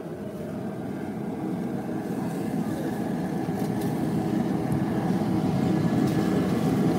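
A steady low roar that grows gradually louder.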